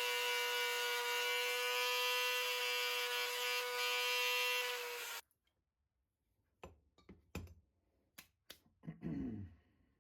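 Small power tool with a wire brush running at a steady whine, cutting off sharply about five seconds in. A few light knocks and clicks follow, with a short low falling sound near the end.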